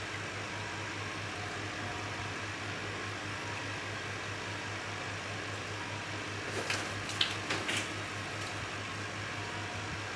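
Steady low mechanical hum of room ventilation, with a few short clicks and taps between about six and a half and eight seconds in.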